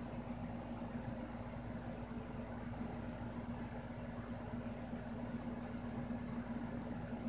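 A steady machine hum: a constant low tone over an even hiss, unchanging throughout.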